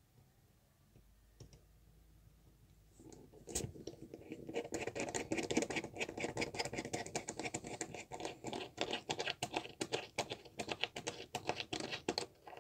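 A small screw being driven through a plastic sleeper of model railway track into the wooden baseboard with a precision screwdriver: a dense run of rapid scratchy clicks that starts about three seconds in as the screw turns into the wood.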